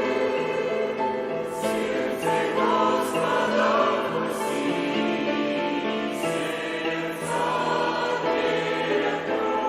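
A choir singing a hymn in sustained chords.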